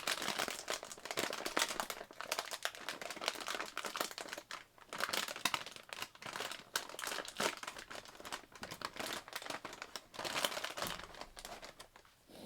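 Bag of Cheez-It Crunch crackers being crinkled and torn open by hand: dense, irregular crackling of the packaging, with brief pauses about four and a half seconds in and near the end.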